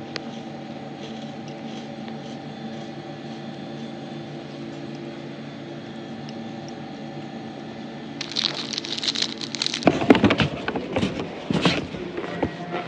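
Plastic snack wrapper on a pack of crackers being crinkled and handled, an irregular crackling that starts about eight seconds in and gets louder. Before that there is only a steady low room hum.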